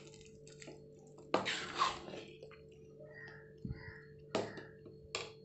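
A spoon stirring thick, wet sambar rice in a pot: a few soft squelches, the loudest about a second and a half in, and two short ones near the end.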